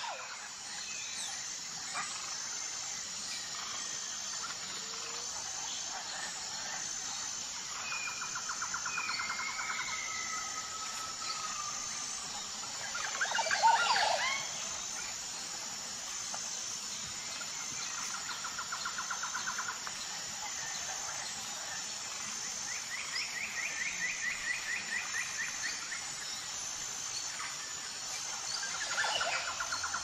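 Outdoor forest ambience of birds calling over a steady, evenly pulsing high insect drone. Several birds give rapid trills and short gliding whistles, with one louder, harsher call about fourteen seconds in.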